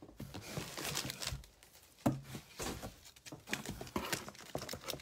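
Plastic-wrapped catalogues and paper being shuffled and lifted out of a cardboard box: irregular rustling and crinkling with light knocks, and one sharper thump about two seconds in.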